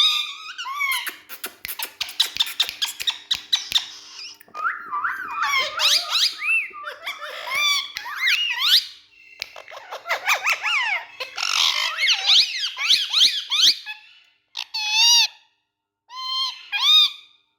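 Indian ringneck parrots chattering and squawking: rapid, sharply rising and falling shrill calls mixed with clicks. Near the end it thins out to a few short separate calls.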